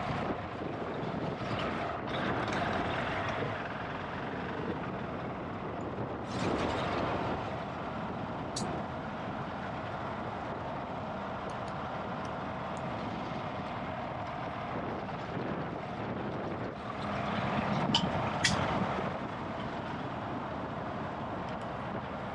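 GasGas ES700 enduro bike's single-cylinder four-stroke engine running under way, swelling louder three times. A few brief sharp ticks cut through near the middle and towards the end.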